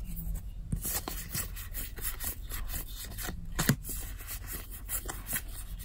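Cardfight!! Vanguard trading cards being slid and flicked past one another in the hands, an irregular run of soft rubbing, scraping and small clicks.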